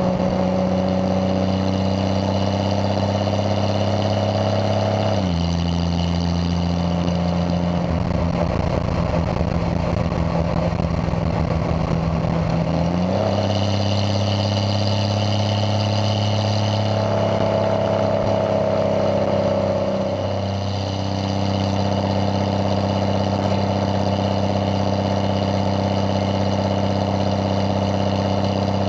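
Triumph TR6's 2.5-litre straight-six running steadily as the car drives along a road. Its note drops about five seconds in, sounds rougher until it steps back up around thirteen seconds, and dips briefly around twenty seconds.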